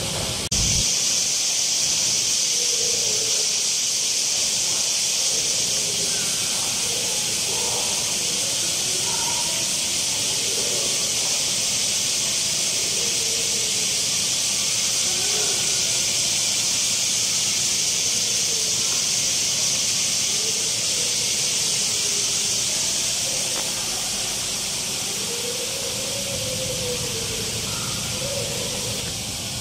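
Steady high-pitched hiss that eases slightly about three quarters of the way in, with faint distant voices talking underneath.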